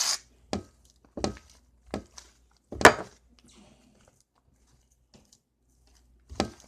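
Fluffy slime being kneaded and pulled by hand while it is still sticky: a handful of short, separate squelches and sticky pops, the loudest about three seconds in.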